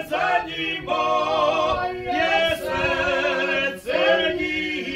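A small group of men singing a traditional Bilice folk song a cappella in several-part harmony, drawing out long held notes in phrases with short breaks between them.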